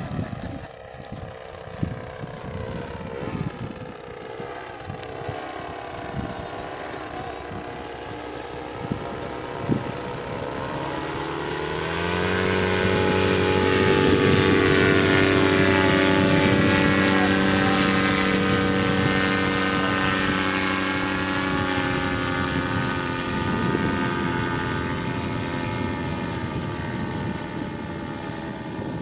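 Paramotor trike's engine and propeller flying past: faint at first among low rumbling and knocks, its steady drone rising in pitch and loudness about twelve seconds in as it passes close, then slowly fading as it climbs away.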